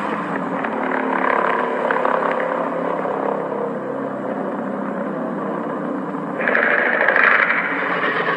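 Kaiju monster roar sound effect: one long, pitched, growling roar that becomes harsher and brighter about six and a half seconds in.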